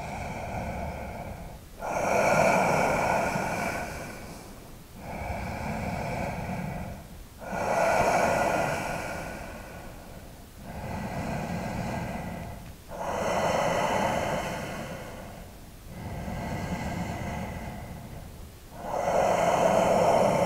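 A person breathing slowly and audibly while holding a deep standing forward fold, with long in-breaths and out-breaths alternating, about four full breaths, the louder breath of each pair coming every five seconds or so.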